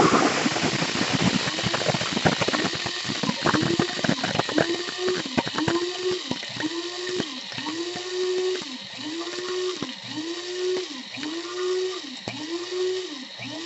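KRUPS F203 blade coffee grinder grinding beans toward a fine grind. It starts with a steady run and the rattle of beans against the blade. From about four seconds in it is pulsed on and off about once a second, so the motor's whine rises and falls with each press.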